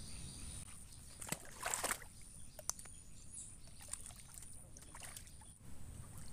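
Water splashing and dripping as a mesh keep net is worked in the shallows, with a few short splashes and light knocks, the loudest about one and a half to two seconds in.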